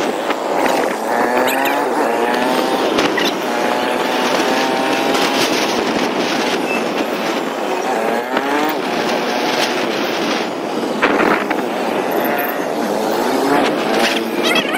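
Motorcycle engine running under way, with road and wind noise; its pitch rises several times as it picks up speed.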